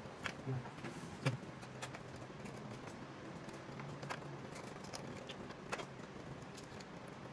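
Hands fitting the plastic internal parts and wiring of an opened BYINTEK K45 projector: scattered light clicks and taps of plastic pieces, the sharpest about a second in, over a faint steady low hum.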